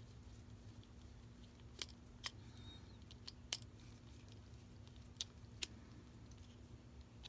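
A few light, sharp clicks and taps as a screwdriver and electrical outlet receptacles are handled, over a faint steady low hum.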